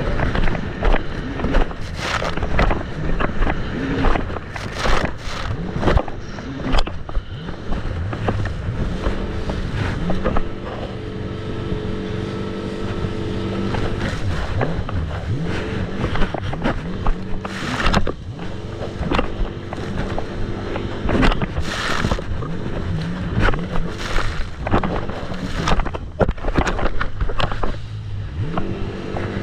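Jet ski engine running under way, its steady drone shifting slightly in pitch, with repeated sharp thumps throughout.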